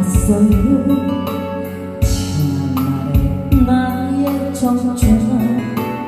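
Karaoke backing track of a Korean trot song: band accompaniment with a melody line over a steady beat, with a drum hit about once a second.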